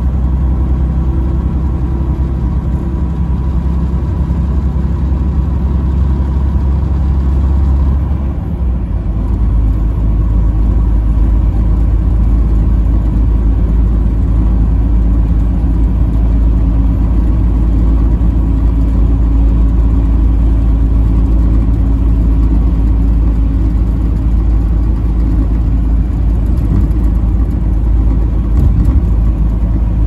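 Semi truck's diesel engine running steadily at highway speed, heard from inside the cab with road noise. About eight seconds in, the engine note changes and the level dips briefly, then settles into a steady drone again.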